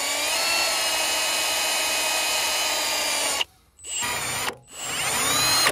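Cordless drill spinning a small wire brush against a rusty steel hydraulic JIC fitting, scrubbing corrosion off its threads. It runs with a steady whine, stops about three and a half seconds in, then gives a short burst and spins up again near the end.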